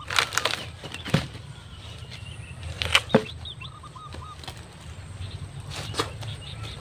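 Green bamboo culm being split lengthwise and pried open, its fibres giving sharp cracks and snaps several times as the halves come apart. Birds chirp faintly in the background.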